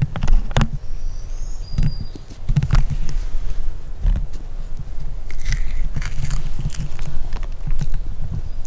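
Scattered rustles and short clicks, about ten spread unevenly, over a steady low rumble.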